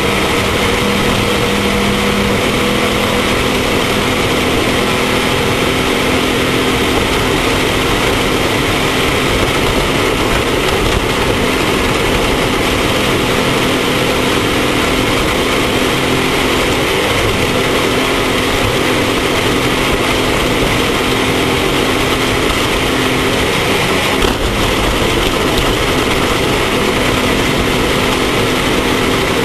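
Off-road race vehicle's engine running steadily under a loud, even rush of noise, with one brief knock about 24 seconds in.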